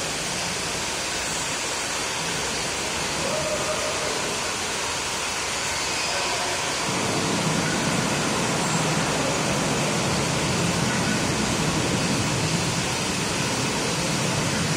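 Steady rushing background noise with no distinct events. About seven seconds in, a lower murmur joins it and the level rises slightly.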